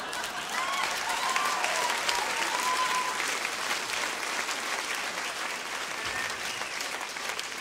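Live audience applauding, with a few whoops and cheers in the first few seconds, the clapping slowly dying away toward the end.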